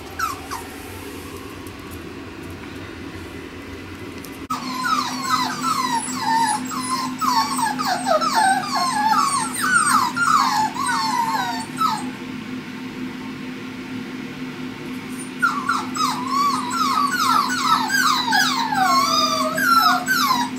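Pomsky puppies whining and yipping, a dense string of short high sliding cries several a second. They start about four seconds in, stop around twelve seconds, and start again about fifteen seconds in.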